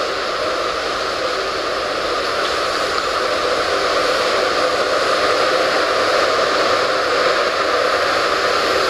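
Steady rushing hiss of a train rolling slowly through a station, heard from on board, growing a little louder about halfway through.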